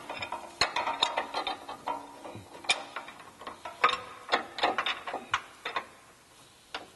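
Irregular metallic clicks and clinks of bolts, nuts and hanger straps being handled and fitted by hand under a vehicle's frame, a few clinks ringing briefly.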